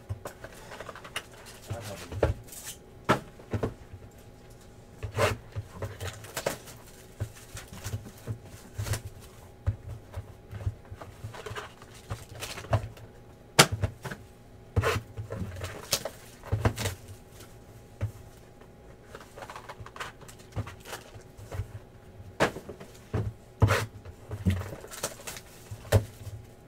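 Cardboard trading-card boxes being handled, opened and set down on a tabletop: irregular knocks, taps and rustles, some with a dull thud. A faint steady hum runs underneath.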